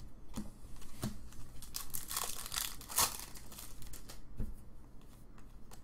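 Trading cards being flipped and slid over one another in the hands, with a few light clicks and a papery rustle about two to three seconds in.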